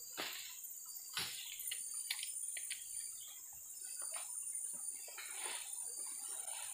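Steady high-pitched insect drone from the surrounding trees, with short scattered chirps and rustles over it.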